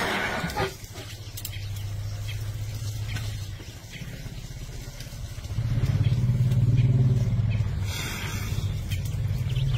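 Low, steady engine hum like an idling motor, swelling louder for about two seconds past the middle.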